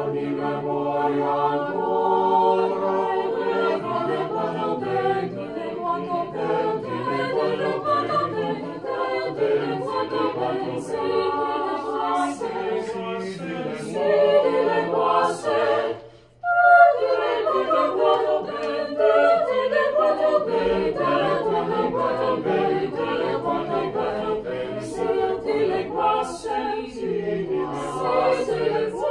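Mixed chamber choir singing a cappella in several parts, with a brief full stop about halfway through before all the voices come back in together.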